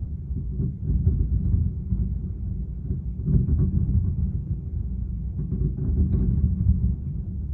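Fireworks going off: a continuous low rumble of booms, with sharper, louder bursts about a second in, about three seconds in and around six seconds in.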